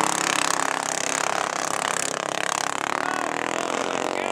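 Mini bike engine revving hard as the bike launches off the drag-strip start line and accelerates away.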